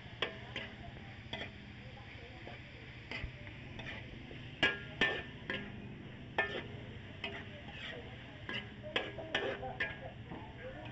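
Metal spatula scraping and clinking against a metal wok as diced meat is stirred, over a faint sizzle of frying. The clinks come irregularly and are loudest about halfway through.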